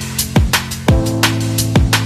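Background electronic music with a steady beat: a deep kick drum dropping in pitch on each hit, about two a second, under held synth chords and crisp high percussion.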